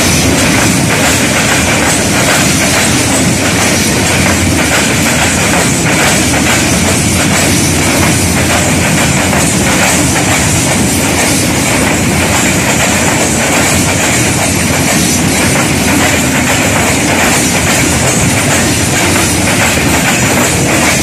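Freight train of open wagons rolling past at close range over a diamond crossing: a loud, steady rumble with the clickety-clack of wheels passing over rail joints and crossing.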